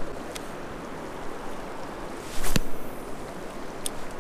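Steady rush of flowing river water, with one sharp click about two and a half seconds in and two fainter ticks, one near the start and one near the end.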